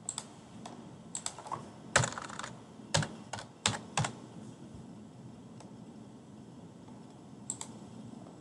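Computer keyboard keystrokes clicking as a word is typed: a quick, irregular run of about a dozen clicks over the first four seconds, then only a couple of faint clicks.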